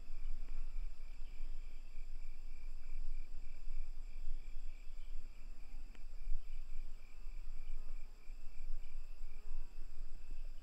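Night insect chorus: crickets chirping in a fast, even pulse, with several higher continuous trills, over a steady low rumble.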